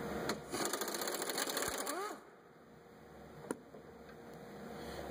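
Cordless power ratchet running for about a second and a half, a fast, even mechanical rattle as it spins out a 10 mm bolt, ending with a short squeak. A single sharp click follows a little later.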